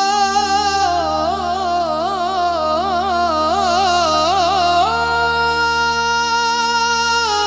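Qawwali singing: one voice drawing out a long, ornamented melisma with quick wavering turns of pitch. About five seconds in it settles onto a higher note and holds it steadily, over a low sustained drone.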